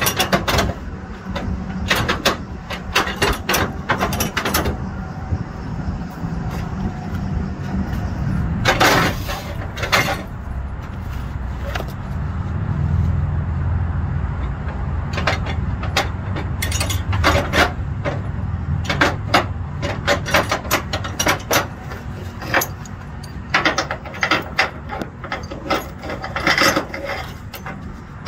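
Flatbed trailer strap winches and strap hardware clicking and clanking in scattered clusters as a wide cargo strap is worked through them by hand. A steady low engine rumble runs underneath.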